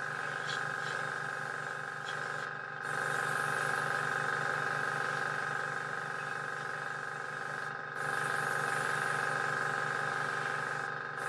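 Airbrush spraying thinned paint in light passes, its air hiss cutting out briefly three times, over the steady hum of the airbrush compressor.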